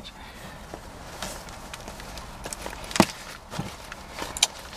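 Faint rustling and a few light knocks from a handheld camera and clothing moving inside a car, with one sharp click about three seconds in.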